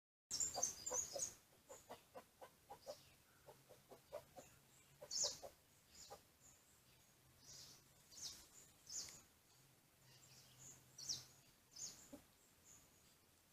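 Faint bird calls: a quick run of short, low clucking notes in the first few seconds, with short high chirps scattered throughout.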